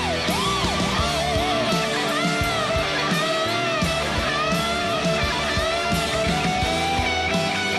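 Live rock band with an electric guitar lead playing swooping, bending notes that dive and rise in pitch, over strummed guitar and a steady drum beat.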